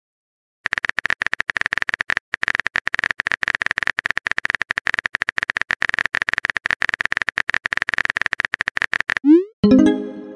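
Rapid clicking of a phone keyboard typing sound effect, kept up for about eight seconds with a brief pause near the start, then a quick rising swoosh and a short pitched chime as the message sends.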